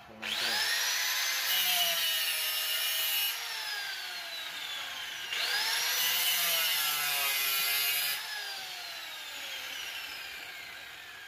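Handheld electric angle grinder started twice, just after the start and again about five seconds in. Each time the motor whines up to speed, grinds against the metal of a forage chopper for two to three seconds, then is switched off and winds down in a long falling whine.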